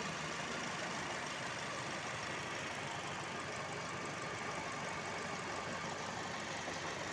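Toyota Vios engine idling steadily with the air conditioning switched on.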